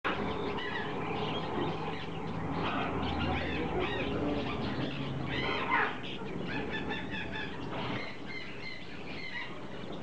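A cageful of budgerigars and lovebirds chattering and chirping continuously, many calls overlapping, with one louder squawk a little past halfway.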